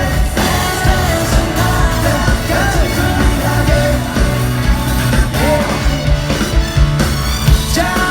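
Live pop-rock band playing loudly, with steady drum hits and bass under singing.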